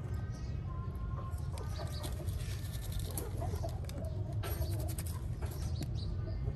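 Chickens clucking in short, broken calls over a steady low rumble, with scattered light clicks and taps.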